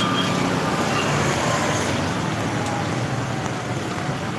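Street ambience: steady traffic noise on a busy shopping street.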